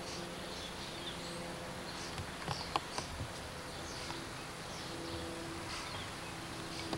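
Outdoor background of faint, scattered bird chirps over a steady low hum and hiss, with a few sharp clicks about three seconds in.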